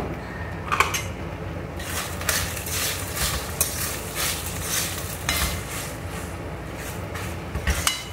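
A spoon stirring and scraping fried rice around a stainless steel wok: a couple of knocks, then from about two seconds in quick repeated scraping strokes, about three a second.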